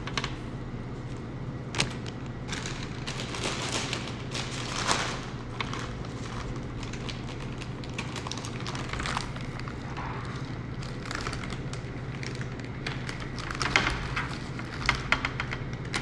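Plastic bowl scraper working soft chocolate ganache on a cling-film-covered metal sheet pan: scattered scrapes, taps and plastic crinkles over a steady low hum. The crinkling gets busier near the end as a plastic piping bag is handled and filled.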